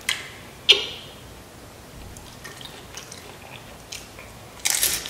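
Close-miked eating of Flamin' Hot Doritos nachos loaded with toppings: a sharp crunch under a second in, soft chewing, then a loud crunch of a chip being bitten near the end.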